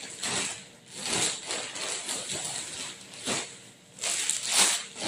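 Plastic mailer bags crinkling and rustling as they are handled and pulled open, in irregular bursts, loudest near the end.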